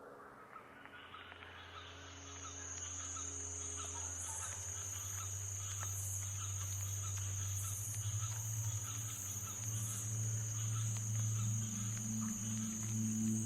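Insects, likely crickets, chirping in a steady high chorus that fades in, with a low hum building underneath.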